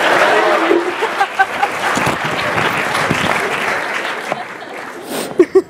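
Audience in a hall applauding, with a few voices mixed in, dying down near the end.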